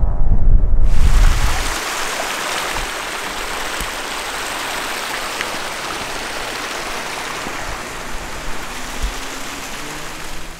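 Wind buffets the microphone for the first second or two. Then comes a steady rush of flowing water, like a fast mountain stream, holding even to the end.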